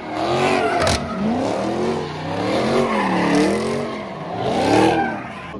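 V8 muscle car engine revving up and down in repeated waves as the car spins donuts, its rear tyres squealing and smoking. A sharp crack sounds about a second in.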